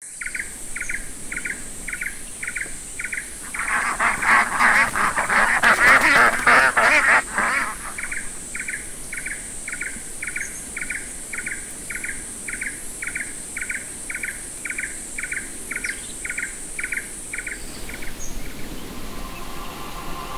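Rice-field nature ambience: a steady high insect buzz and a repeating chirp about three times a second. A flock of ducks quacks loudly for about four seconds, a few seconds in. The chirping and buzz stop a couple of seconds before the end.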